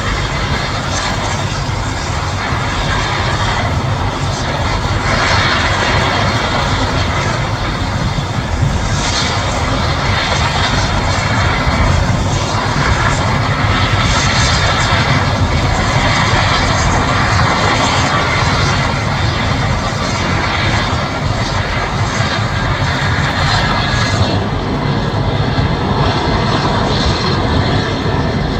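Mil Mi-17 helicopter's twin turboshaft engines and main rotor running loud and steady, a dense rumbling roar with no pauses.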